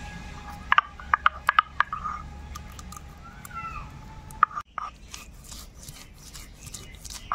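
Cashews being crushed and ground with a stone roller on a flat stone slab (shil-nora): a run of sharp cracks about a second in, then repeated rasping strokes of stone over stone in the second half.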